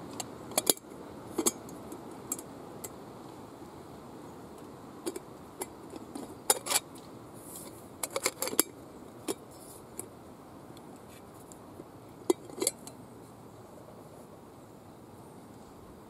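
Small metal cooking pot and its lid being handled: scattered light clinks and taps of metal on metal as the lid is worked off, coming in small clusters with the sharpest ones near the start, around the middle and a little past three-quarters of the way.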